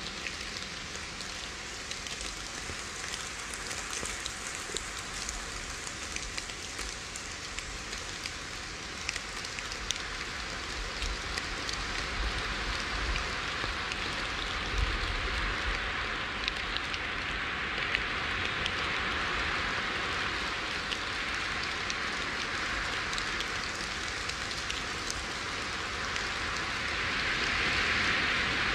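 Small waves washing onto a sandy shore: a steady hiss of surf that swells gently now and then, most strongly near the end.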